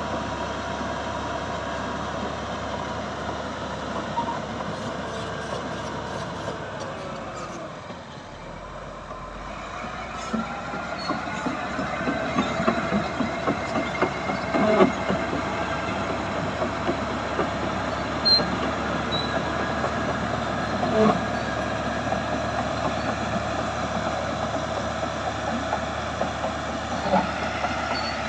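Caterpillar D6H crawler dozer at work: its diesel engine running steadily under the clatter and metallic squeal of its steel tracks. The sound eases for a moment about eight seconds in, then builds again with several sharp clanks.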